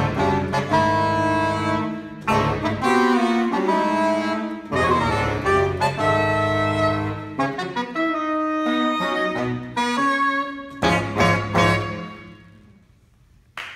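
Saxophone quartet (soprano, alto, tenor and baritone saxophones) playing a contemporary piece in short phrases over a low baritone line, ending about twelve seconds in with a last chord that dies away.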